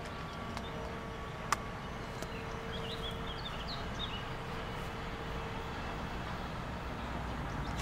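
Distant steam locomotive, the Peppercorn A1 Pacific 60163 Tornado running light engine, approaching as a low steady rumble that slowly grows louder. Birds chirp briefly about three seconds in, and a sharp click comes about a second and a half in.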